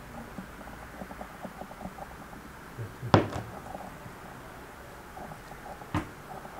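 Two sharp knocks on a wooden worktop about three seconds apart, the first much louder, while raw meat is handled and salted; faint small taps come between them.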